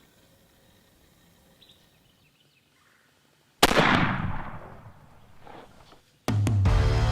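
A single gunshot about three and a half seconds in, its report dying away over about two seconds. Music starts near the end.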